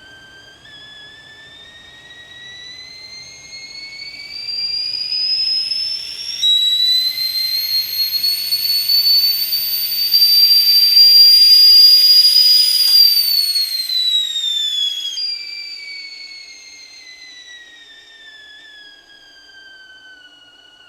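Stovetop kettle whistling at the boil. The whistle climbs in pitch and grows louder, jumps to a higher note about six seconds in, and is loudest near the middle. It then slides back down in pitch and fades as the boil dies away.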